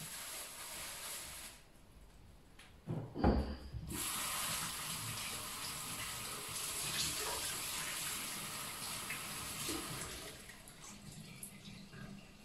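Kitchen tap running into a stainless-steel sink as raw chicken legs are rinsed under it. The water stops briefly, there is a thump about three seconds in, then the water runs steadily again and eases off near the end.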